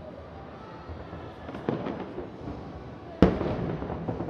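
Aerial fireworks shells bursting over a low, continuous rumble. There is a smaller bang about a second and a half in, then a sharp, loud boom about three seconds in.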